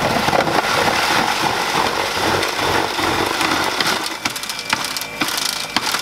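Goodnature M-1 cold-press juicer grinding pieces of fruit and vegetables: a dense grinding noise that starts abruptly, eases off about four seconds in, and carries scattered sharp clicks.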